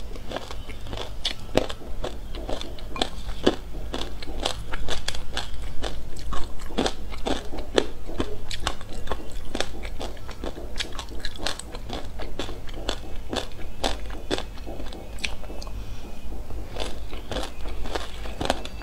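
Chewing a mouthful of sesame seeds mixed with passion fruit pulp: rapid, irregular crunching and crackling, several crunches a second.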